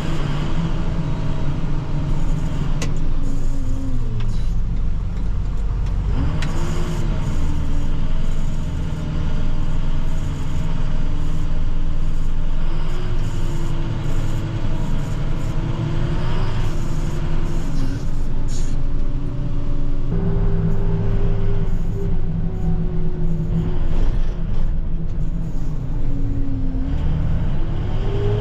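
Plow truck's engine running while driving, its pitch falling and rising several times as the truck slows, speeds up and shifts gears.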